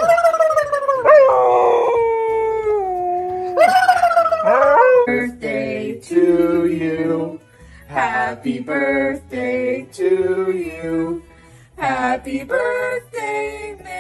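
A dog howling: two long, drawn-out howls that slide down in pitch. From about five seconds in, people sing in short phrases.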